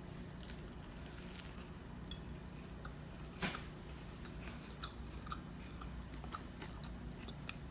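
A person biting into and chewing a crispy fried chicken zinger burger, with faint small crunches and one sharper crunch about three and a half seconds in.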